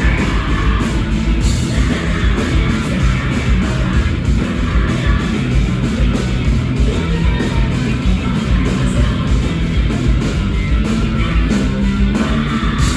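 Live rock band playing loud and heavy, with distorted guitars and dense, driving drums and cymbals, and a big full-band hit right at the end.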